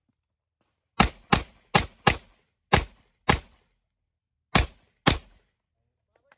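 Pistol fired eight times from the prone position in four quick pairs, two shots on each target in an IPSC practical-shooting stage. The shots within each pair are about a third to half a second apart, with roughly a second between pairs.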